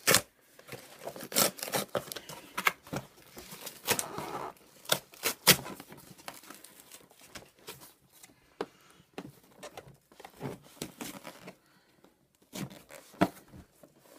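Packing tape and a cardboard box being torn and scraped open with a key: irregular rips, crinkles and sharp clicks.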